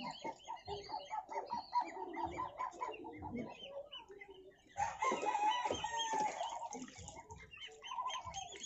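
Backyard chickens clucking in a quick series of short calls, then a rooster crowing about five seconds in.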